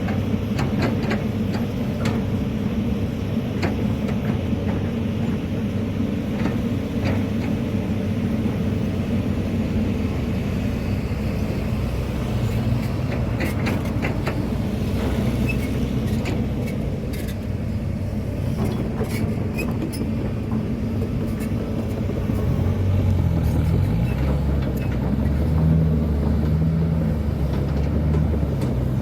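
Hitachi ZX200-5G excavator's diesel engine running steadily under load as it digs and loads dump trucks, with scattered knocks and clatter. The engine note steps up and gets louder over the last several seconds.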